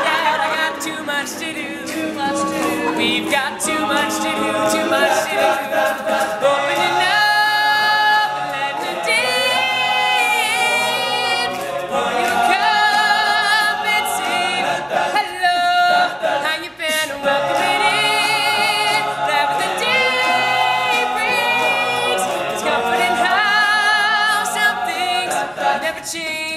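All-male a cappella group singing in harmony, with a lead voice sung with vibrato above the backing voices.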